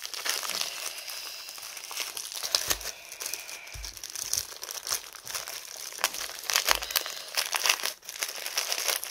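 Plastic packaging crinkling and rustling as a white plastic mailer bag and clear plastic sleeves are handled and items are worked back into them, in a rapid, irregular run of crackles, with a few dull bumps along the way.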